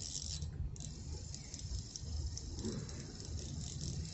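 Spinning reel being cranked, a fast light rattle, as a small hooked fish is reeled in, over a steady low rumble.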